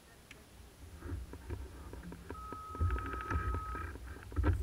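A steady electronic beep sounds for about a second and a half in the middle, over a low uneven rumble and scattered clicks.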